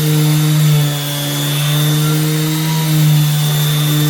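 Power sander running steadily against an aluminum wheel with 240-grit paper, a constant hum with a hiss over it, sanding out deep curb rash.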